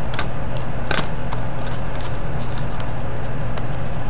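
Trading cards being handled on a table: scattered light clicks and taps, the strongest about a second in. Under them runs a steady low background hum.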